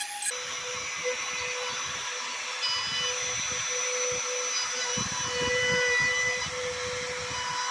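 Electric wood router running and cutting into a hardwood board, a steady high-pitched whine that gets a little louder about five seconds in as it bites into the cut.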